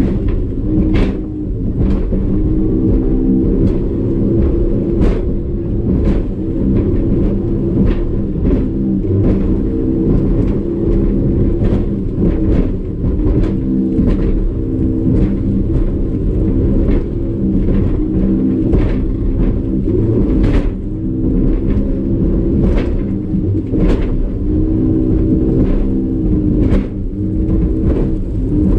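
Two-stroke 150 hp Evinrude E-Tec outboard running hard at speed, its note steady with a slight wavering. Over it the hull knocks through the waves every second or so, with a heavy low rumble.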